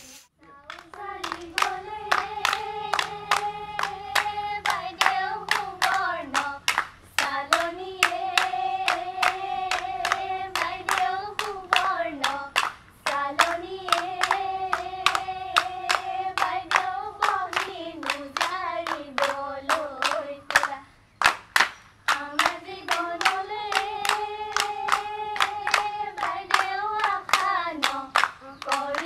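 Women singing a Bihu song together in long held phrases, each rising at its start and falling away at its end, over steady rhythmic hand-clapping. Singing and clapping break off briefly about three-quarters of the way through, then resume.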